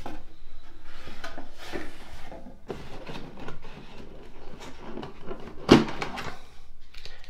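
Cardboard box and moulded plastic packaging being handled as a toy drone is worked out of its tray: rustling, scraping and a run of light knocks, with one sharp knock, the loudest, about three-quarters of the way through.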